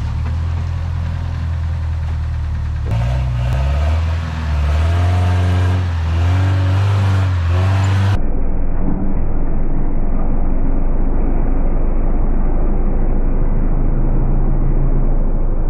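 Lifted Toyota pickup's engine running under load as it crawls over a dirt mound, its revs rising and falling in the first half. About halfway through the sound turns duller and more muffled, a steady engine rumble.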